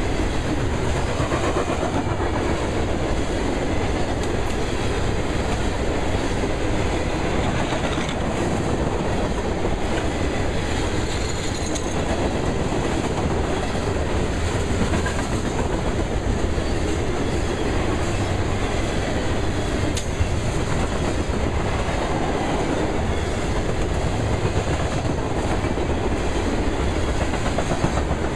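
Loaded coal hopper cars of a freight train rolling past, with a steady rumble and clatter of steel wheels on the rails.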